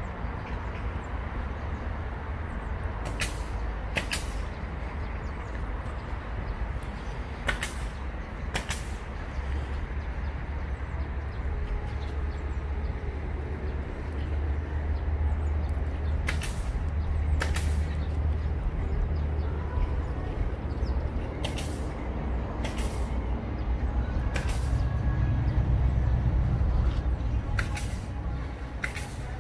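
Outdoor background rumble, steady and low, swelling twice, with short sharp ticks every few seconds.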